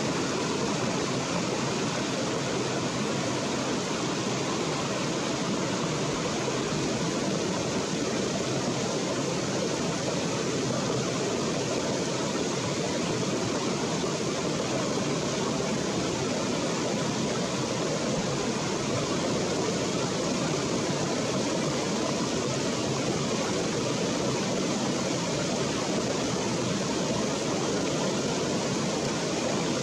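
A shallow rocky stream running: a steady, even rush of water.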